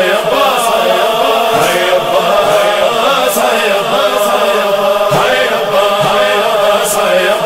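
A noha, a Shia lament, chanted by voices without instruments, with a slow melody that rises and falls in a choir-like chorus.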